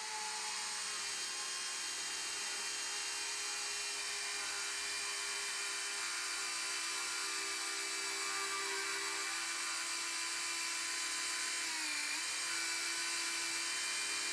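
Bosch mini cordless chainsaw's electric motor running steadily, its small chain cutting into a log, a high motor whine with a brief dip in pitch about twelve seconds in as it bogs under load. It runs with the heatsink removed from its motor-control MOSFET, and without anyone holding the trigger, because its lock mechanism was damaged on reassembly.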